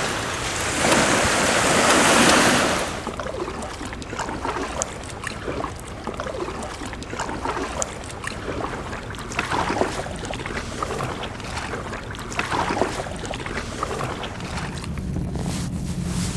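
Seawater lapping and sloshing around a fishing kayak, with wind on the microphone. A louder rush of wind and water fills the first few seconds, then it settles to quieter lapping with small scattered knocks and ticks.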